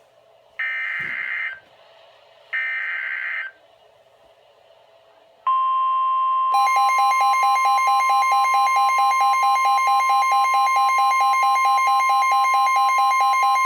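Emergency Alert System alert coming over NOAA Weather Radio: two roughly one-second warbling data bursts of the SAME header, then a few seconds in the steady 1050 Hz warning alarm tone starts, and about a second later a Midland WR-120EZ weather radio's own rapid pulsing alarm beeps join it. The tones signal a new warning about to be broadcast.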